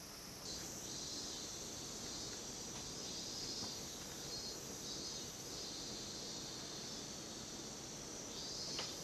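A steady chorus of summer insects chirring, with a slight pulsing, which grows louder about half a second in. A faint click comes near the end.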